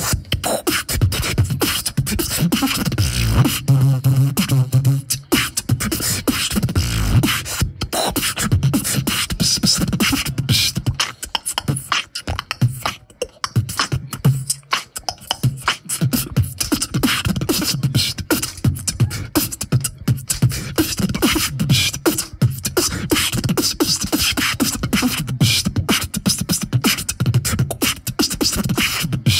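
A beatboxer performs a battle round, amplified through a handheld microphone: fast rhythmic mouth percussion, with deep hummed bass notes in the first few seconds. The beat thins out briefly around the middle, then picks up again.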